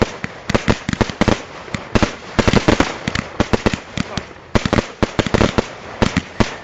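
Fireworks display at close range: a rapid, irregular string of sharp bangs and cracks, several a second, with a brief lull about four seconds in.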